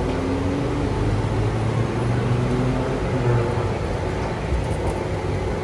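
Steady low mechanical hum of a rail station: an Airport Rail Link train standing at the platform, then a running escalator.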